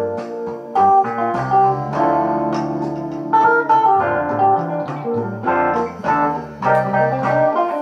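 Instrumental music, held chords under a line of separately struck notes, played back through a WE421 single-ended valve power amplifier.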